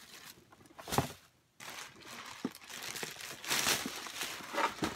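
Rustling and crinkling of shoe packaging being handled, with a single knock about a second in.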